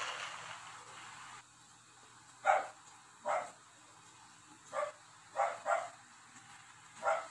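A dog barking: six short, separate barks spread over about five seconds. Before them, a steady rushing noise cuts off suddenly about a second and a half in.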